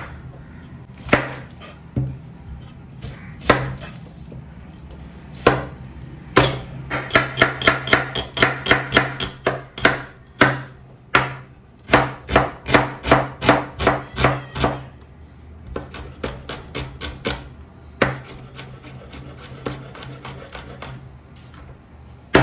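Chef's knife chopping onion on a wooden cutting board: single cuts a second or two apart at first, then a fast run of chops, about three or four a second, slowing and growing fainter toward the end. A steady low hum lies underneath.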